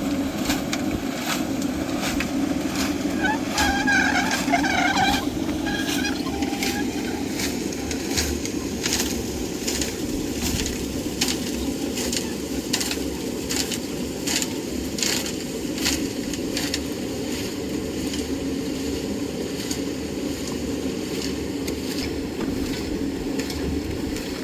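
An engine running steadily under many short knocks and scrapes of concrete work, with a brief voice calling out about four seconds in.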